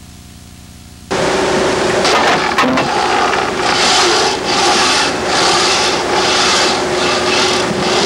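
Wind tunnel running: a loud, steady rushing noise with a constant low hum that starts abruptly about a second in. There are a few knocks a little later, and a hiss that swells and fades about one and a half times a second.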